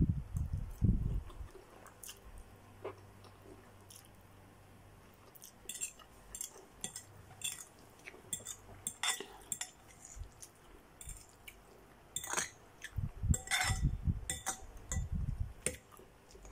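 Metal fork clinking and scraping against a bowl of noodles in a run of short, irregular clicks, with low chewing sounds in between.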